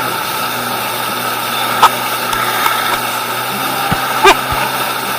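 Stand-up jet ski engine running steadily under way, with the rush of water and wind around it. Two short sharp knocks, about two and four seconds in.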